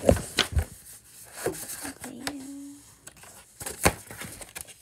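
Handling noise of a paper picture book and the phone filming it: a string of uneven clicks, taps and paper rustles as the book is shifted and pages are touched, the loudest knock coming near the end.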